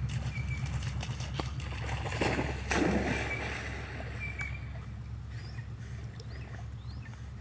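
A dog plunges into a pond with a loud splash a little over two seconds in, then paddles and sloshes through the water. A steady low rumble runs underneath, and a bird chirps briefly a few times.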